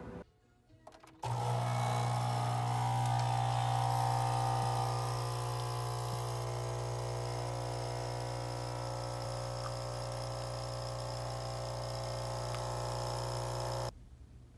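Capsule espresso machine's pump running with a steady hum while it brews a cup. The hum cuts off suddenly near the end as the brew finishes.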